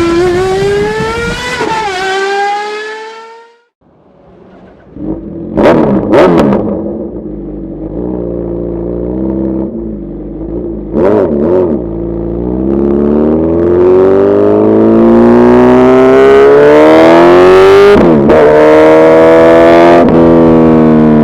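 Suzuki Hayabusa Gen3 inline-four engine running, with two quick throttle blips and another a few seconds later. It then revs up steadily for several seconds, with a brief dip near the end, and holds high revs. Before the engine comes in, a short intro sound cuts off abruptly.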